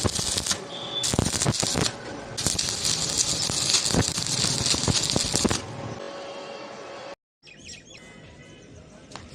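Stick (arc) welding: the arc crackles densely and steadily for about five seconds, then stops. After a brief cut, quieter background music with a few held tones follows.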